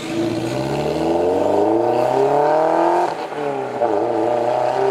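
Toyota MR-S's 1.8-litre four-cylinder engine, breathing through an aftermarket full-titanium muffler, accelerating hard away. The exhaust note climbs steadily in pitch, drops at a gear change about three seconds in, then climbs again as the car pulls away.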